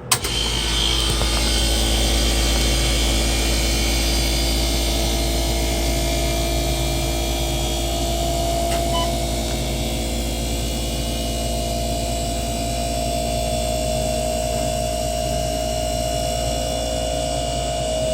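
ALB 241 compressor switching on abruptly and running steadily, with a deep hum and a few constant higher tones.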